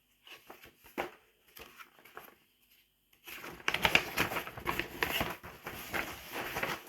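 Wrapping paper being handled: a few soft rustles and clicks, then from about three seconds in, continuous crinkling and rustling of paper.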